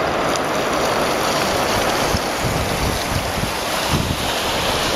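Steady rush of a shallow river flowing over gravel, with wind gusting on the microphone.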